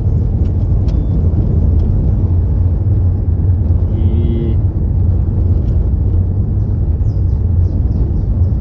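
Steady low rumble of a car on the move, with a short higher tone about four seconds in.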